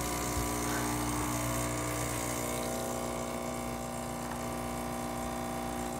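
Gaggia Classic espresso machine's vibratory pump buzzing steadily while pulling an espresso shot.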